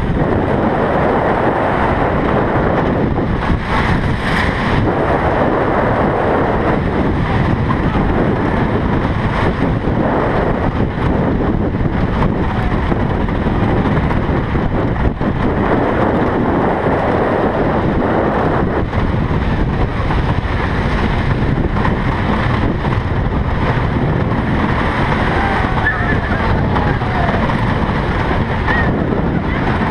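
Joris en de Draak wooden roller coaster train running over the track at speed: a steady, loud rattle and rumble of the wheels on the wooden track, with wind buffeting the microphone.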